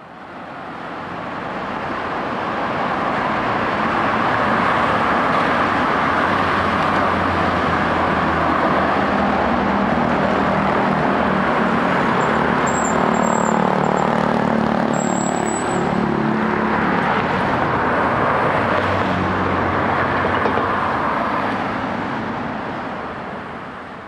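Steady city road traffic at night: engines and tyres of passing cars, with a deeper engine hum in the middle and a brief high squeal twice. The sound fades in at the start and fades out near the end.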